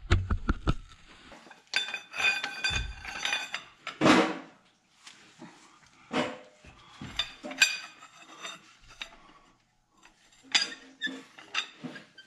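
Steel wrench and socket clinking and knocking against the cylinder-head bolts of a tractor diesel engine as the head bolts are loosened. The strikes come irregularly, several with a short metallic ring.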